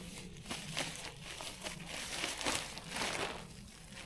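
Tent footprint groundsheet rustling and crinkling as it is handled and unfolded, in a quick irregular run of strokes.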